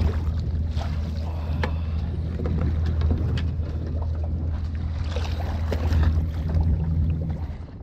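Steady low rumble of strong wind buffeting the microphone aboard a small boat, with scattered small knocks. The rumble drops away near the end.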